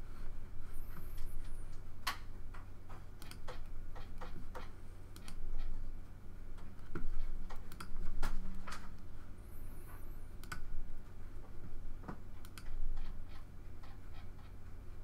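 Irregular, scattered clicks of a computer mouse as menus are clicked through, a dozen or so spread unevenly, over a steady low hum.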